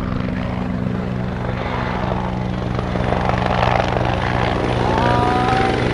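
Steady low drone of an engine, even and unbroken. About five seconds in, a higher tone rises and then holds steady.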